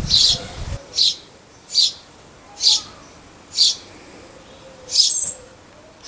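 A small bird calling over and over: one short, high chirp about once a second.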